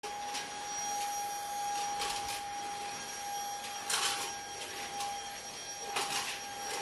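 Cordless stick vacuum cleaner running with a steady high whine, its floor head pushed over a wood-look floor, making several brief scuffing sounds.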